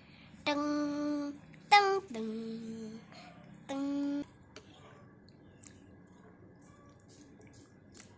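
Four short held notes with a voice-like tone. The second note slides steeply down in pitch, and the others stay level. After the notes, only faint background with a few small clicks.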